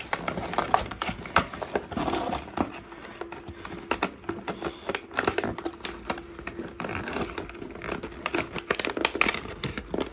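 Cardboard box and clear plastic blister packaging being handled and pulled open: a busy run of crinkles, taps and clicks.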